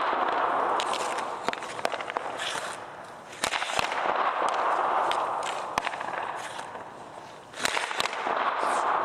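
Hockey pucks shot at a goalie on an ice rink: sharp cracks of stick on puck and puck off the pads. Each crack is followed by a swell of blades and pads scraping the ice as the goalie drops into the butterfly and recovers, one about a third of the way in and another near the end.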